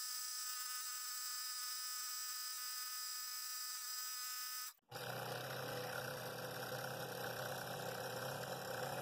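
Scroll saw running steadily, its blade cutting through a cherry bowl blank. Just before five seconds in the sound drops out for an instant and changes character, at a cut in the recording.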